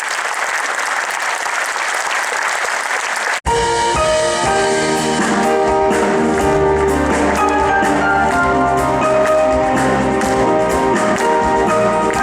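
Audience applauding, then, after an abrupt cut about three and a half seconds in, instrumental music starts, with held notes over a bass line.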